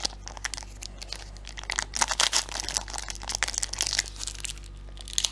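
Crinkling and tearing of a 2019/20 Upper Deck hockey card pack's wrapper as it is ripped open and handled, in a series of short crackly bursts.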